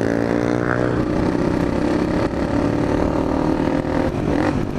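Motorcycle engine running while riding along, its pitch rising a little in the first second and then holding steady, with wind rush over the microphone.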